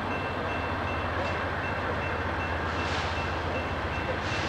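Electronic grade-crossing bell dinging in a rapid, even rhythm as the crossing activates, over a steady low rumble of the approaching CSX diesel locomotives, a C40-8 and an SD50-2.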